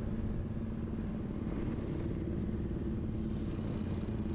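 Vehicle engine running at a steady speed while driving, a low, even hum with road noise.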